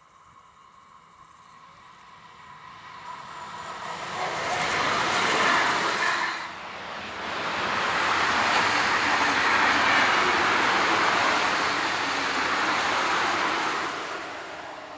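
SBB double-deck passenger train passing on the line at speed: the steady rolling noise of wheels on rail swells as it approaches, dips briefly about six seconds in, then holds loud and even before starting to fade near the end.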